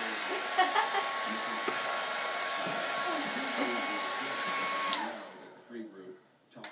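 Handheld hair dryer blowing with a steady whine, switched off about five seconds in, its whine falling as the motor spins down to quiet; a sharp click near the end.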